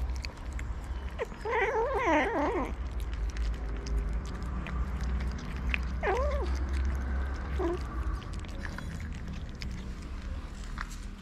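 Stray cats at a shared tray of wet food: one lets out a long, wavering yowl about a second and a half in, then a shorter call about six seconds in and a brief one near eight seconds, amid small clicking eating sounds.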